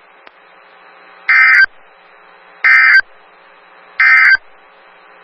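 Emergency Alert System end-of-message signal: three short bursts of harsh digital data tones, about 1.4 s apart, marking the end of the alert message. Faint hiss lies between the bursts.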